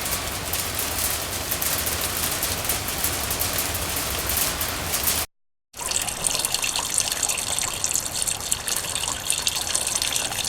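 Steady heavy rainfall hissing, then an abrupt cut to silence about five seconds in and a second rain recording with a brighter, busier patter of drops.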